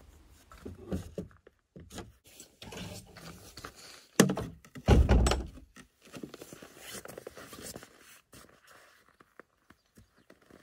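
Scattered knocks and thumps of a wooden ladder and a long-handled snow shovel being handled and set in place, with a sharp knock about four seconds in and a heavier thump just after it.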